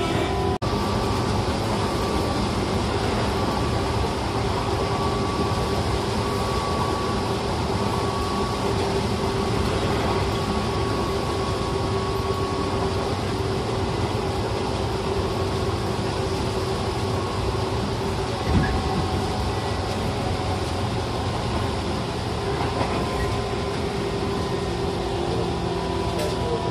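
Steady running noise heard inside the passenger car of an Aizu Railway 6050 series 200-number electric train: an even rolling rumble with a steady hum.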